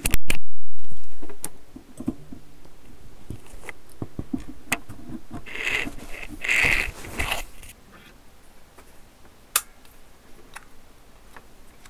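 Handling noise from the power cord being pushed into the back of a desoldering station: a very loud distorted bang right at the start that cuts off abruptly, then scraping, rustling and scattered clicks, with one sharp click near the end.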